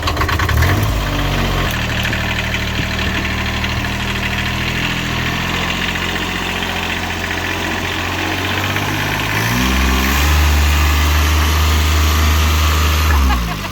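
Vehicle engine revving up and held at steady revs under load while towing on a rope to pull a tree out; the revs climb higher and louder about ten seconds in and fall away near the end.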